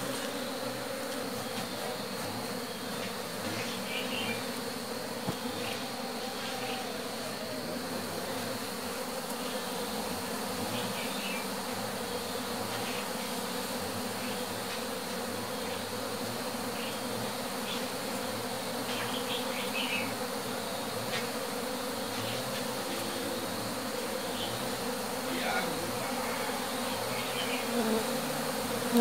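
A large mass of honeybees buzzing in a steady, dense hum around a hollow-log hive as several colonies are merged into it, with faint light clicks here and there.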